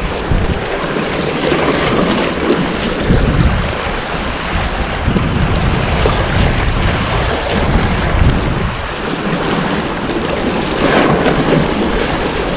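Steady wind buffeting the microphone over the wash of the sea.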